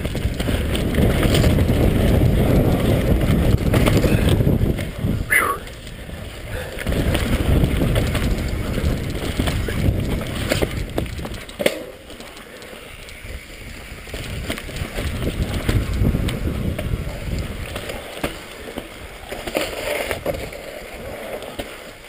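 Mountain bike riding fast down a dirt forest singletrack: tyres rumbling over dirt and roots, the bike rattling with scattered knocks, and wind buffeting the microphone. A short high squeal comes about five seconds in.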